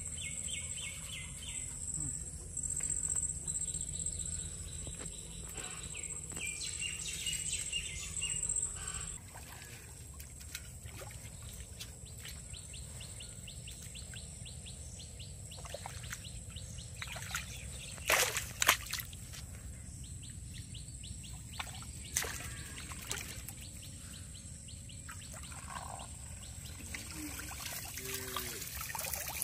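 Waterside outdoor ambience: a steady high insect drone through the first third, a few bird chirps, and light water sloshing and trickling as a bamboo fish trap is handled in shallow water. Loudest are two sharp clicks a little past halfway.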